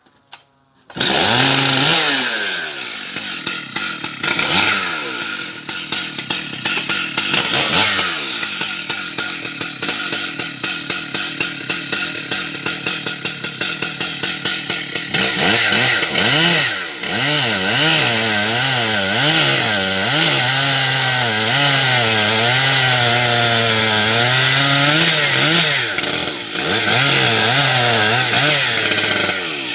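Stihl MS 880 chainsaw, a large two-stroke saw, starts running about a second in. It revs and falls back several times, then holds at high revs with a wavering pitch through the second half, as when it is cutting into the ash trunk.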